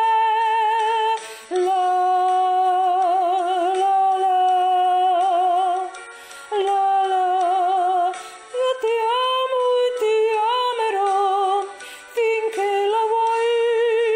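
A woman singing long wordless held notes with a wide vibrato, in phrases of about two to four seconds with short breaks between them.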